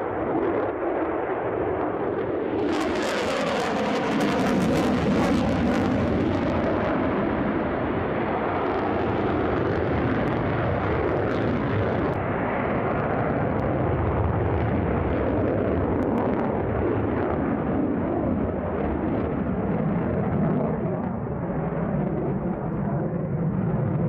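Sukhoi Su-57 fighter's twin jet engines during a display flight: a loud, steady rumble. From about three to six seconds in it turns harsher and crackling.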